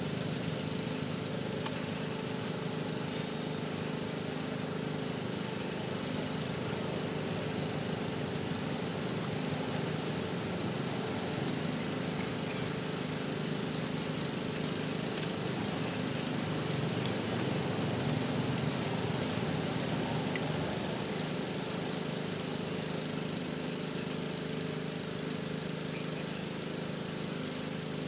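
An engine running steadily at an unchanging pitch, getting a little louder for a few seconds past the middle.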